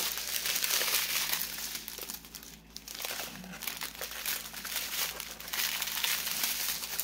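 Clear plastic packaging strip of diamond-painting drills crinkling as it is handled and unfolded: a dense run of rustles and crackles, with a brief lull a little under halfway through.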